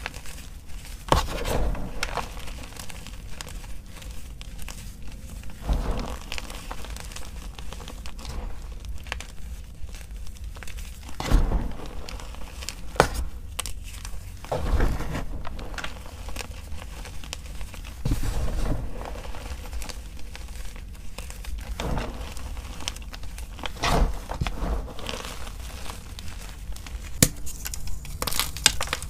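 Hands squeezing and crumbling loose crushed gym chalk: a dry, powdery crackle with irregular louder crunches every few seconds. There is a sharper crack near the end.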